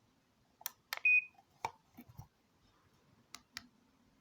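Plastic button clicks on a 1byone wireless doorbell set and one short high beep about a second in. No chime tune follows: the receiver picks up the push's signal but will not play its tune, the fault being shown.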